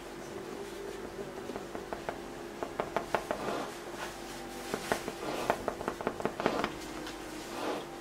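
Oil-paint brush working against a stretched canvas: two runs of quick dry taps and scratchy strokes, one about three seconds in and a longer one from about five to six and a half seconds, over a steady low room hum.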